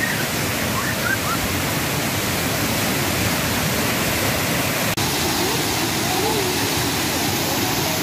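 Waterfall pouring into a rock pool: a steady, loud rush of falling water, broken by a brief dip about five seconds in.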